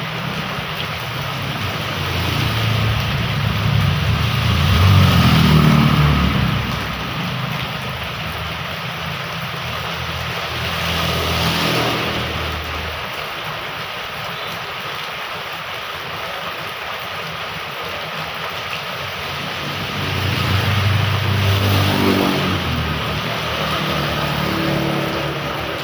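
Steady hiss of heavy rain, with motor vehicles passing by: one swells and fades about five seconds in, and another around twenty-one seconds.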